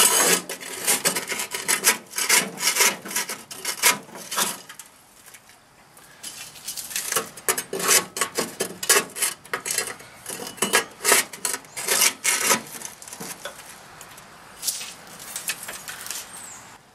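Scraper scraping and scooping burnt, crunchy grease residue out of a grill's drip pan in quick, repeated strokes, with a short pause about five seconds in and sparser strokes near the end.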